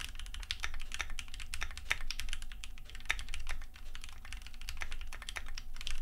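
Fast typing on a Keychron Q6 full-size CNC-aluminium mechanical keyboard: a dense, continuous stream of key presses, quite silent for a mechanical board.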